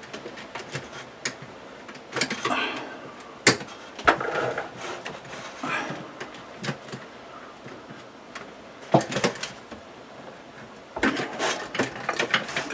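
Hands pushing wires into a plastic under-cabinet LED light fixture: scattered clicks, light knocks and rustling of plastic and wire, with a sharp click about three and a half seconds in and busier handling near the end.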